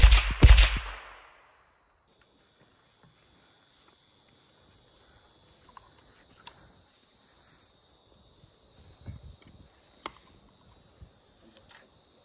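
A single gunshot about half a second in, ringing off within a second. After a short hush, a steady high hiss carries on with a few faint clicks.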